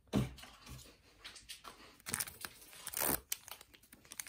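Plastic packaging being crinkled and torn open in short crackly bursts, the loudest about two and three seconds in, after a soft knock at the start.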